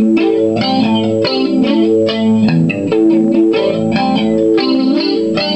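Squier Standard Stratocaster electric guitar (about 2004) played through an amp with some effect added, a quick phrase of picked notes and chords. It is on the second, bridge-and-middle pickup position, which gives the Strat's out-of-phase tone.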